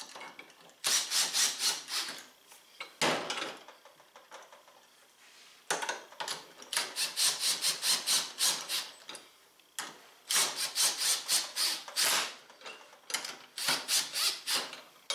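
Cordless impact driver run in about five short bursts, each a fast rattle of hammering, as it snugs down the bolts on a Polaris RZR XP 1000 primary clutch a little at a time in a crisscross pattern.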